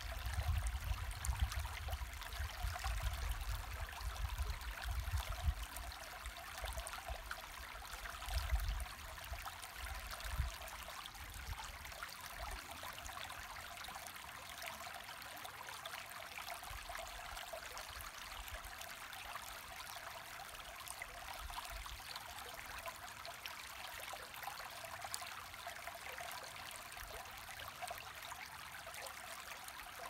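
Shallow mountain creek running over stones, a steady babbling hiss of flowing water. A low, uneven rumble comes and goes underneath for the first dozen seconds or so, then fades.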